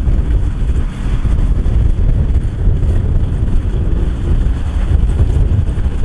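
Kubota DC108X combine harvester's diesel engine running under harvesting load, a steady low rumble with wind buffeting the microphone.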